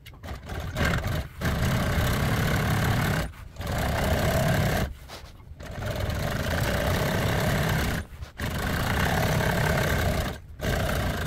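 Juki industrial sewing machine running in stretches of about two seconds, stopping briefly four times, as it sews a second row of stitches through vinyl along a seam.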